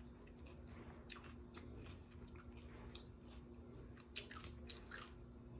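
Soft chewing of a crunchy vegetable salad close to the microphone: faint crunches and mouth clicks, one sharper click about four seconds in, over a faint steady hum.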